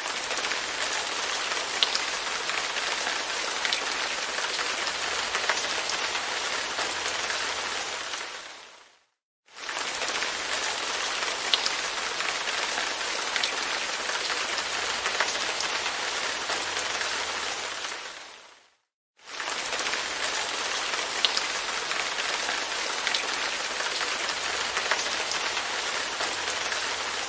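Light rain pattering on a window pane: a steady hiss with a few sharper single drops. The rain fades out to silence and back in about every ten seconds, the same stretch repeating, so the track is a short recording looped.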